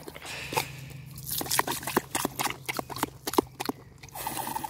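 Wet mouth sounds from a spaniel close to the microphone: a run of irregular smacks and clicks as it licks and works its mouth after being squirted with water.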